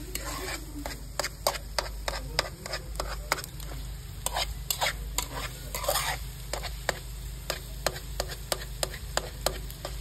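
Metal spatula stirring meat and vegetables in a metal cooking pot, knocking and scraping against the pot's sides in quick, irregular clicks, with the food sizzling faintly.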